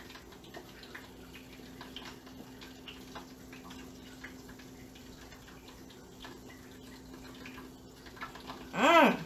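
Faint soft ticks and crinkles of fingers folding and rolling a thin egg roll wrapper on a paper plate, over a steady low hum. Near the end there is a short vocal sound, louder than the rest, that rises and then falls in pitch.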